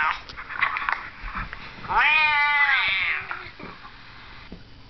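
A Siamese cat's loud, drawn-out meow about two seconds in, lasting about a second and rising then falling in pitch, after the tail end of another meow at the very start.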